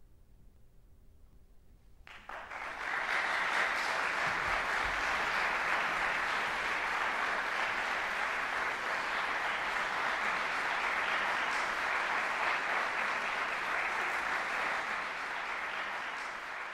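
After a hush of about two seconds, audience applause breaks out suddenly and continues as steady, dense clapping.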